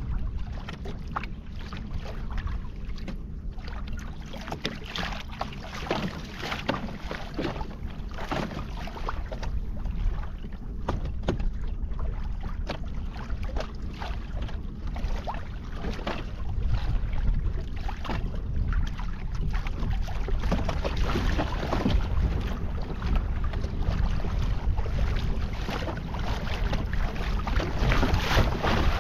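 Wind buffeting the microphone as a steady low rumble, with water slapping and splashing irregularly against a kayak hull.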